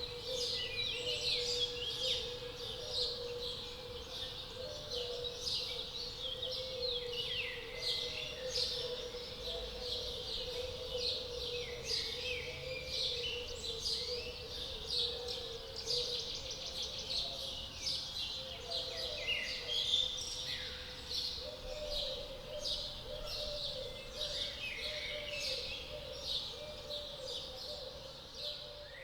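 Many small birds chirping and trilling over one another without pause, with a steady low hum underneath.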